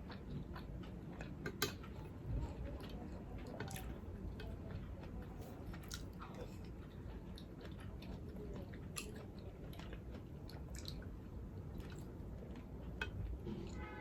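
Close-miked chewing and mouth sounds of someone eating a meal, with scattered sharp little clicks throughout.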